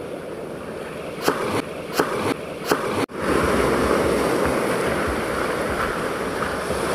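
Surf washing up a stony beach, with a few short sharp clicks in the first half. After a sudden cut about three seconds in, the wash of breaking waves becomes louder and steadier.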